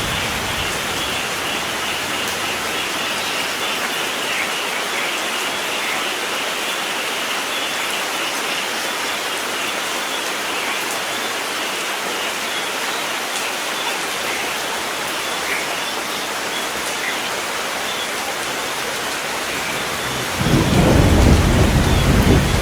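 Steady rain falling, with a low rumble of thunder starting near the end and growing louder.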